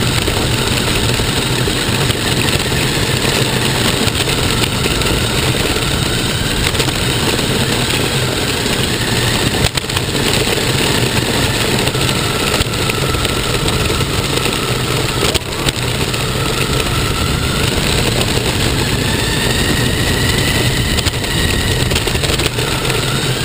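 RC car's motor and drivetrain, recorded by a camera mounted on the car: a steady loud running noise with a whine that rises and falls several times as the throttle changes while the car drives and drifts.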